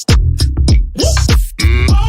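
Hip hop background music: a drum-machine beat with heavy bass hits and short chopped vocal snippets.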